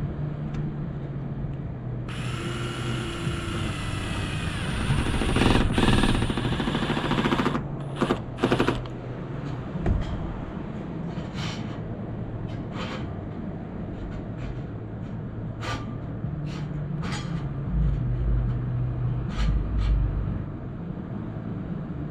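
Cordless impact driver driving a self-tapping screw through a solar panel mounting bracket: its motor whines from about two seconds in, then it hammers rapidly for a few seconds, with two more short bursts around eight seconds. Later come light clicks and taps of the metal bracket being handled, over a steady low hum.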